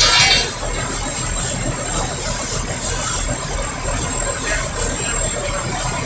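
A vehicle engine running steadily, with a short loud burst of sound in the first half-second.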